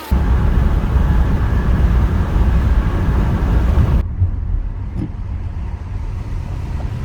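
Road and engine noise inside a moving car's cabin, a steady low rumble. About four seconds in it cuts to a quieter, duller rumble.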